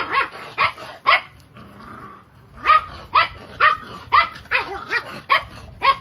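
A dog barking in short sharp barks, about two a second, breaking off for about a second and a half, then barking again.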